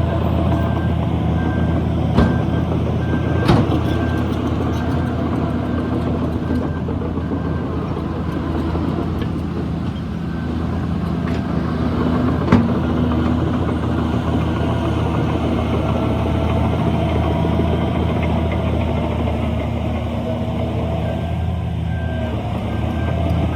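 Heavy diesel earthmoving machinery running steadily, with a few sharp metallic knocks. A reversing alarm beeps near the start and again near the end.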